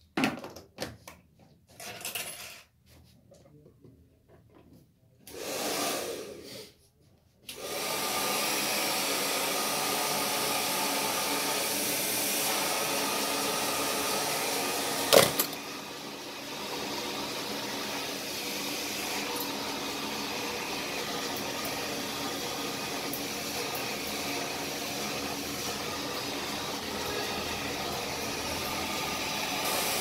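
Handheld hair dryer blowing hair. It switches on after a few seconds of knocks and clatter and then runs with a steady blowing hiss. A sharp click comes about halfway, after which it runs a little quieter.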